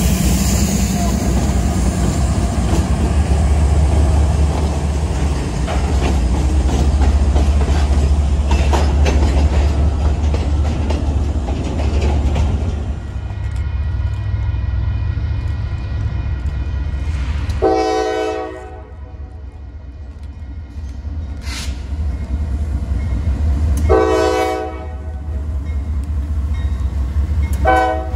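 Diesel freight locomotives and cars rumbling past at close range. Then, about 13 s in, a quieter steady diesel rumble as a Norfolk Southern GE AC44C6M-led freight approaches, sounding its multi-chime air horn in blasts of about a second each: one near the middle, a second a few seconds later, and a third starting at the very end.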